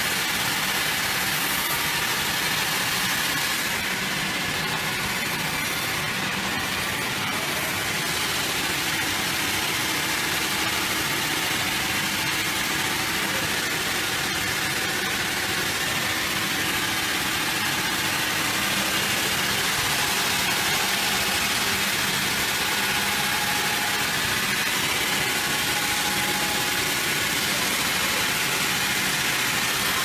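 Sawmill machinery running with a steady, even mechanical noise that holds at one level throughout, with no distinct strokes, starts or stops.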